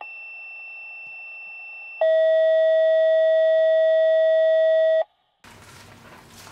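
Test-card tone sound effect: a faint high steady beep, then about two seconds in a much louder, lower steady tone with overtones that cuts off suddenly after about three seconds. Faint room noise follows near the end.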